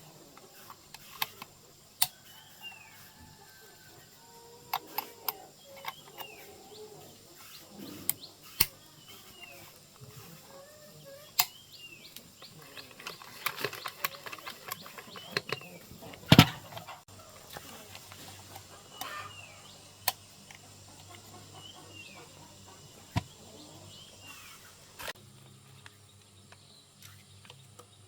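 Scattered sharp clicks and knocks at irregular intervals, the loudest about sixteen seconds in, over short bird chirps that come again and again.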